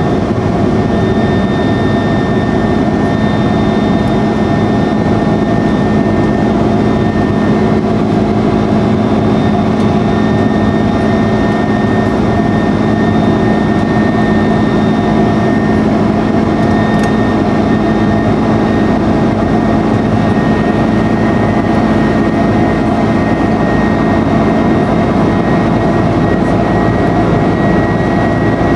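Cabin noise of an Airbus A330-200 climbing, heard beside its wing-mounted turbofan engine: a steady jet roar with a low hum and a high-pitched fan whine that edges up slightly near the end.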